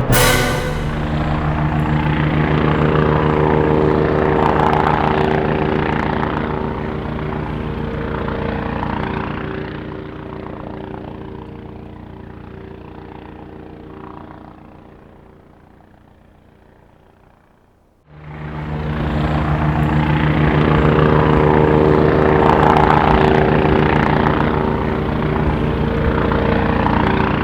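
A vehicle engine running steadily with a deep, even drone, fading away until nearly gone about 18 seconds in, then cutting back in loud.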